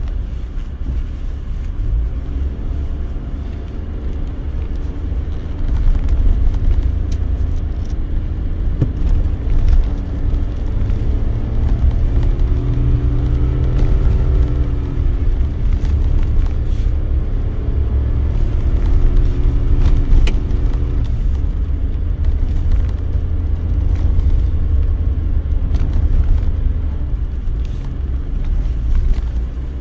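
Car engine and tyre rumble heard from inside the cabin while driving a narrow mountain road. The engine note rises and then falls again between about twelve and sixteen seconds in.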